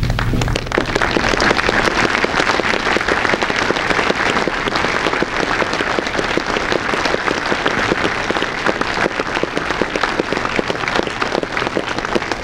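A large audience applauding: many hands clapping steadily.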